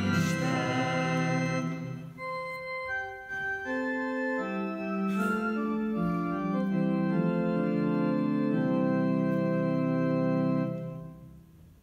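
Church organ playing slow, sustained chords that change step by step and stop about a second before the end. Congregational hymn singing trails off in the first second.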